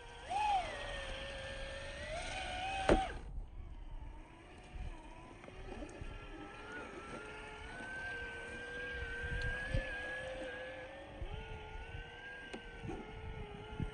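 Traxxas TRX-4M mini RC crawler's small electric motor and gears whining, the pitch rising and falling with the throttle, with scattered knocks as the truck crawls over rocks. A single sharp click about three seconds in is the loudest moment.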